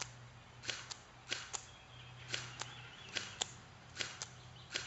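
Electric airsoft M4 rifle firing single semi-auto shots, a sharp click, mostly doubled, repeating roughly every three-quarters of a second, about six times.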